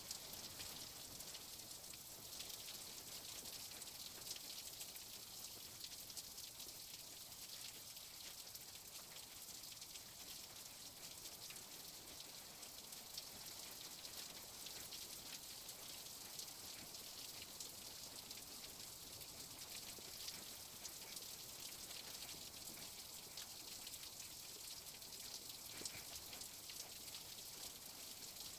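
Faint, steady high-pitched hiss with a light crackle running through it, with no clear sound from the fingertip strokes on the tablet.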